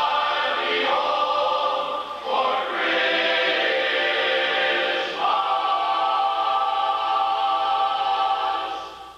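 Men's barbershop chorus singing a cappella in close harmony, holding long chords that change a few times. The sound dies away near the end.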